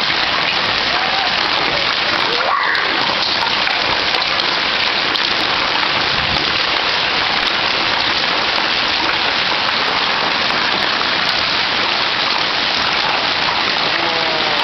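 Hailstones pelting the ground, a garage roof and other objects in a dense, steady hiss.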